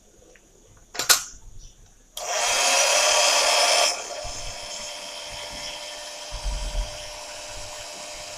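Mini washing machine: a sharp click about a second in, then its motor starts suddenly a little after two seconds, running loudly for under two seconds before settling into a quieter, steady whirr.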